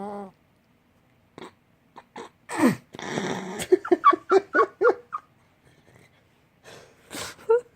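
Shih Tzu waking from sleep: a loud, noisy burst of breath about two and a half seconds in, then a quick run of short whimpering grunts, about five a second, and another breathy sound near the end.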